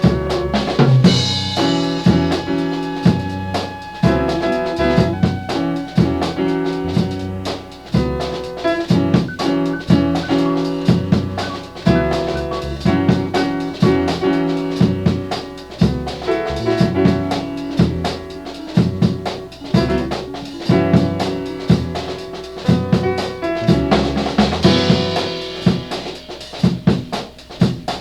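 Background music: an instrumental track with a steady drum-kit beat of bass drum and snare under sustained pitched notes.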